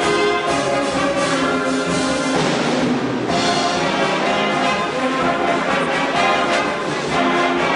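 Big band of saxophones, trombones and trumpets playing held chords. A crash of noise comes about two and a half seconds in.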